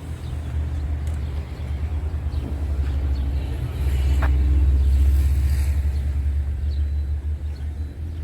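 Steady low rumble that swells louder about four seconds in.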